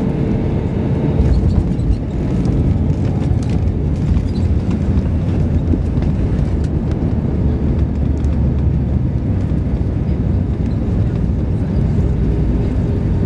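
Airliner cabin noise as the jet rolls on the runway after landing: a loud, steady low rumble of engines and wheels.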